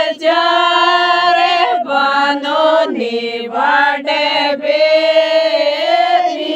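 A voice singing a Rajasthani folk wedding song (vivah geet) in long, held, wavering notes, with short breaks between phrases.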